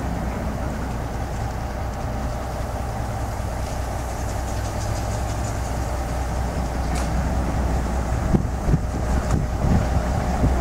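Diesel engine of a large crawler crane running steadily under load as it slews, holding a narrowboat in slings. Toward the end, wind buffets the microphone in irregular gusts.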